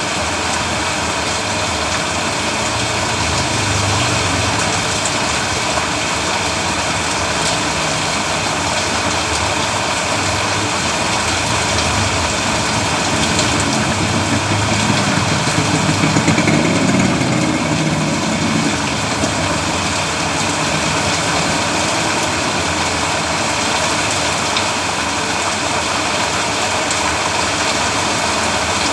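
Steady rain falling on a road, with the low rumble of a motor vehicle engine underneath that swells briefly about halfway through, as a vehicle passes.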